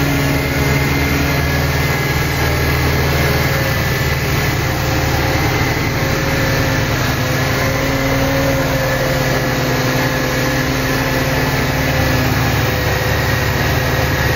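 Mercedes-Benz E200 Kompressor's supercharged 1.8-litre petrol four-cylinder idling steadily, heard from over the open engine bay.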